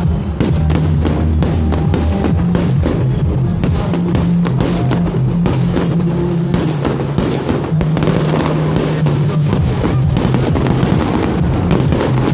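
Fireworks bursting and crackling again and again over loud music with a heavy bass line and drums.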